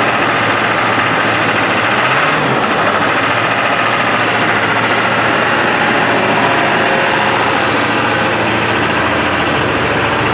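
Ford 7.3L Power Stroke V8 turbo-diesel idling steadily on its first run after new injectors were fitted. It has not yet smoothed out while air is still being worked out of the system.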